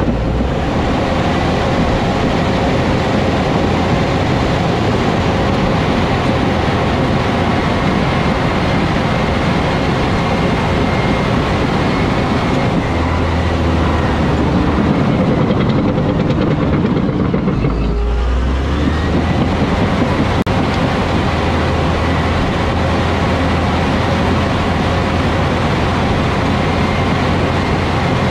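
Cat D7 crawler bulldozer working: its diesel engine runs under load while the steel tracks clatter steadily. About halfway through, the sound dulls for a few seconds and a deeper rumble swells, which then holds.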